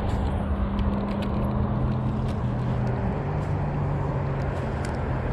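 Steady low engine drone with a hum whose pitch drops about three seconds in, mixed with a few light ticks.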